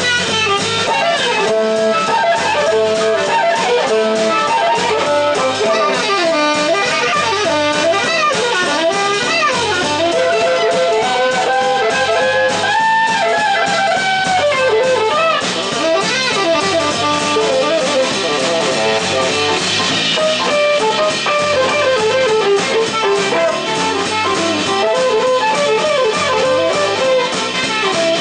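Live jazz band playing, with tenor saxophone and drum kit.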